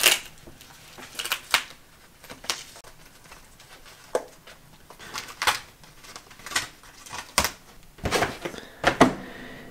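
Cardboard parcel box being opened by hand: irregular scrapes, small rips and taps of corrugated cardboard, with a busier stretch of handling about eight seconds in.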